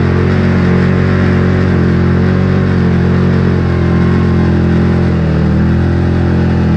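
2006 Can-Am Outlander Max 800 XT ATV's 800 cc V-twin engine running hard at steady revs, dipping briefly about five seconds in and then picking up again, while the quad climbs a snowy slope and runs out of traction.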